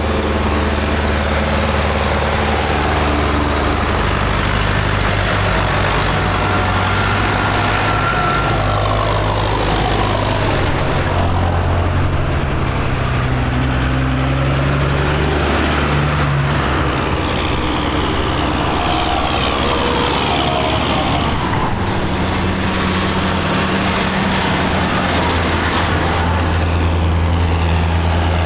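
A procession of diesel farm tractors, including a Massey Ferguson and John Deeres, driving past one after another with engines running steadily. The engine note shifts as each tractor comes close and falls away as it passes.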